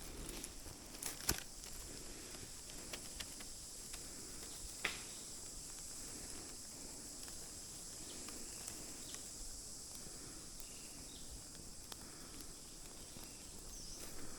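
Steady high-pitched chirring of forest insects, with a few sharp clicks and light rustles, the loudest about five seconds in.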